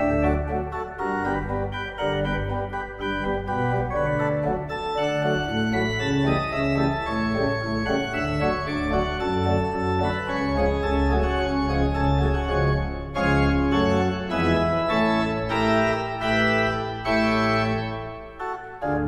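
Schuke pipe organ playing a full-voiced closing piece: sustained chords over deep bass notes, the harmony moving every second or so.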